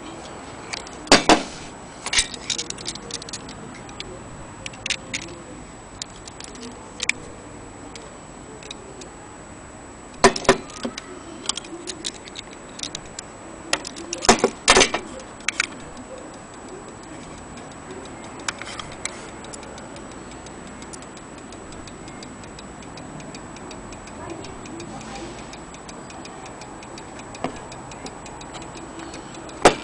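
Antique French mantel clock movement being handled: irregular sharp metallic clicks and clatter in clusters, the loudest about a second in and around ten and fifteen seconds in, with a faint steady high-pitched whine underneath.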